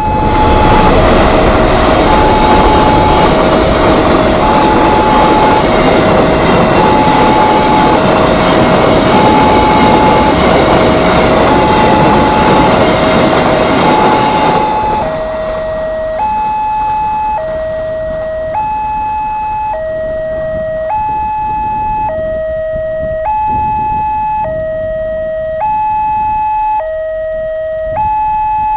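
Container freight train passing through a level crossing for about fifteen seconds, over the crossing's electronic warning alarm. The alarm alternates a high and a low tone, about one change a second, and goes on alone after the train has gone by.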